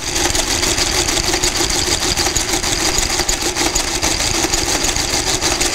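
Friden square-root electromechanical calculator running a multiplication. Its motor hums steadily under a rapid, even clatter from the gear train. The machine is multiplying the square root of 2 it has just computed (1.414213562) by itself as a check.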